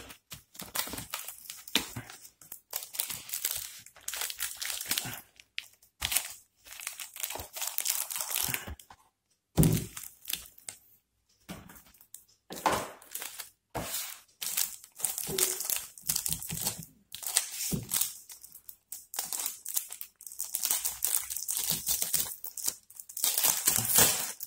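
Unboxing sounds: the flaps of a cardboard box opened by hand, then clear plastic film wrapping crinkling and rustling in irregular bursts as a notebook and its accessories are handled. A sharp thump about ten seconds in.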